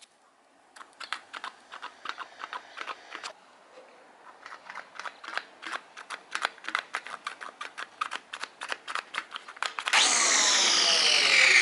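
Trigger switch of a Black & Decker corded electric string trimmer clicked on and off many times in quick, irregular succession without the motor starting, the sign of its intermittently failing switch. About ten seconds in the motor catches and runs with a loud whine.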